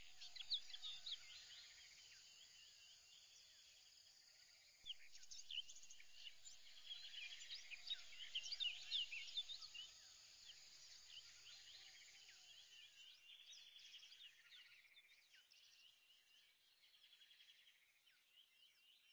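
Faint chorus of many birds chirping. It grows busier and louder about five seconds in, then thins out and fades away near the end.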